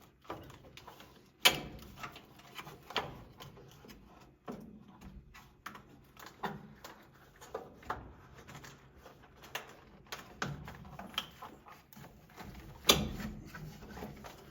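Irregular clicks, knocks and handling noise from working on a whole-home humidifier's housing and water pad, with two louder knocks, one about a second and a half in and one near the end.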